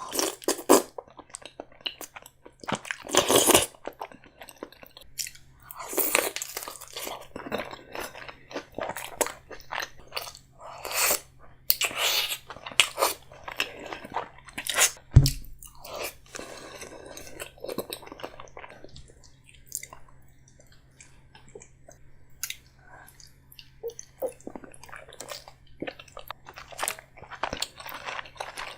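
Close-miked eating of a king crab seafood boil in Alfredo sauce: chewing, wet smacking and irregular crunching and cracking of crab shell. One sharp, deep thump about 15 seconds in.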